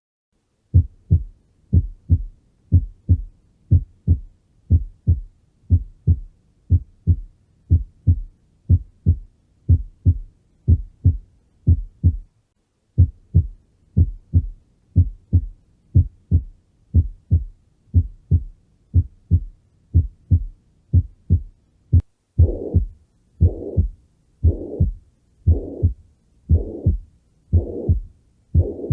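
Recorded heart sounds: a steady lub-dub heartbeat of short, low thumps, with a brief break about twelve seconds in. About 22 seconds in, it changes to a heartbeat with a whooshing murmur filling each beat, about one beat a second.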